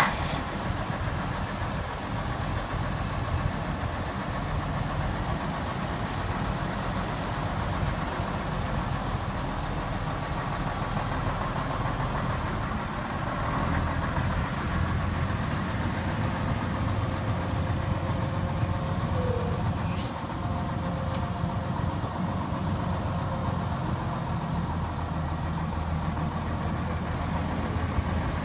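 1968 Mack fire truck's engine idling steadily.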